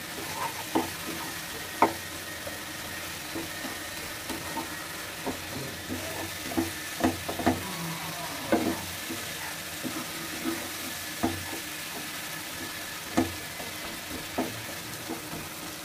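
Wooden spatula stirring and scraping through a thick, oily onion masala with salted hilsa pieces in a frying pan, over a steady low sizzle of frying. The spatula's scrapes and knocks against the pan come irregularly, about one every second or so.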